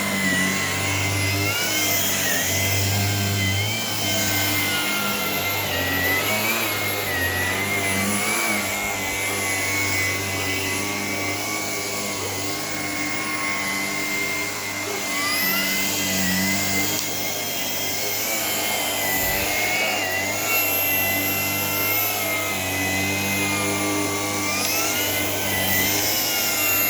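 Shark PowerDetect cordless vacuum running on an area rug. Its motor whine rises in pitch twice, about a second and a half in and again about halfway through, and falls back after each, as the motor speeds up and slows down.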